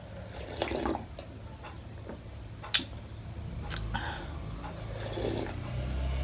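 Close-miked eating sounds of panipuri: wet slurps of the spicy-sour panipuri water, with a sharp click about two and a half seconds in and a few softer wet sounds after it.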